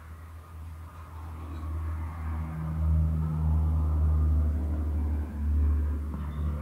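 A low rumble with a steady low hum, swelling from about a second in and easing off near the end.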